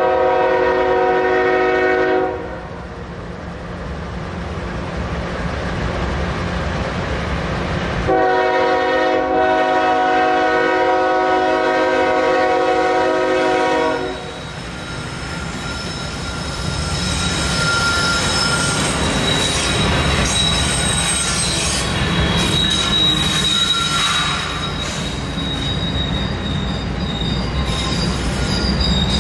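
Diesel freight locomotive's air horn sounding a chord: one blast that ends about two seconds in, then a long blast of about six seconds that cuts off. From about fifteen seconds in, the freight train rolls through with a rumble and steady high-pitched wheel squeal on the rails, the train having been put into emergency braking.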